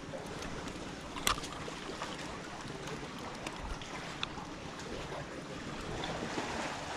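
Black Sea surf washing on a sandy beach, a steady hiss, with one sharp click about a second in and a few fainter ticks.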